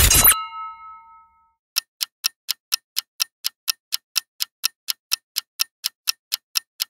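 Clock-ticking sound effect for a quiz countdown timer, sharp even ticks about four a second, starting about two seconds in. Just before it, a brief noisy hit with a few ringing tones that fade out within a second.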